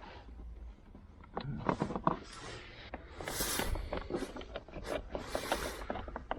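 Scattered clicks, taps and short scrapes of hand tools working at the steering wheel as the screws holding the airbag are loosened.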